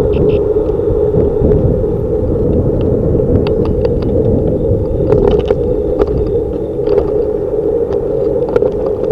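Steady wind and road rumble picked up by a handlebar-mounted camera on a bicycle riding through car traffic, with scattered sharp clicks and rattles, most of them in the middle of the stretch.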